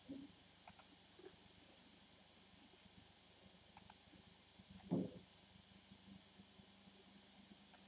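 Faint computer mouse clicks, mostly in quick double-click pairs, four times, over a low steady room hum; about five seconds in a soft, dull thump comes with the clicks and is the loudest sound.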